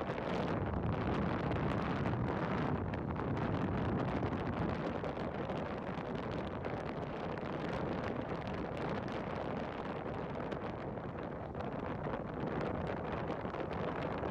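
Steady rushing noise of wind buffeting the microphone, with faint crackles throughout.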